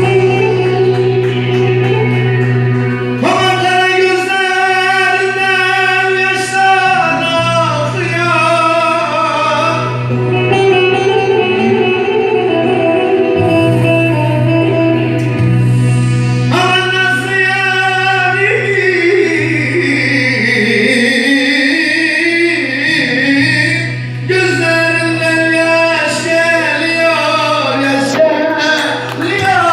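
Turkish uzun hava: free-rhythm folk music with long, held, wavering melodic lines over a steady low drone.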